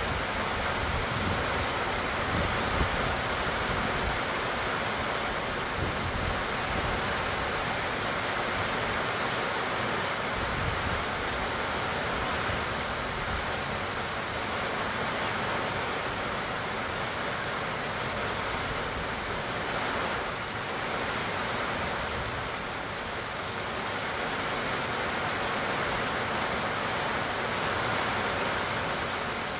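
Steady summer rain falling on pecan trees and grass, an even hiss. There is some low rumbling during the first ten seconds or so.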